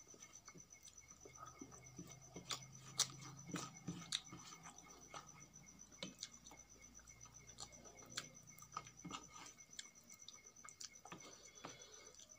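Fingers mixing rice with tomato chutney on a metal plate: faint, irregular sticky clicks and taps, with a few louder ones around the third and fourth seconds.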